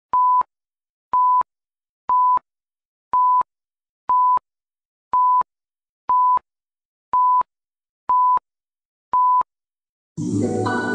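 Countdown leader beeps: one steady electronic tone sounding once a second, ten times, each beep about a third of a second long. Just before the end, music with held chords starts.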